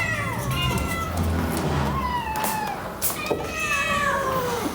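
Domestic cats meowing repeatedly: several long meows that fall in pitch, some overlapping, the longest one near the end.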